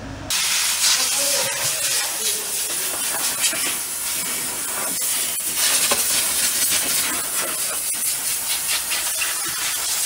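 Compressed-air cleaning spray gun blasting a mist of cleaning fluid onto an oily engine underside, a loud steady hiss that starts abruptly just after the start and surges a little as the jet moves.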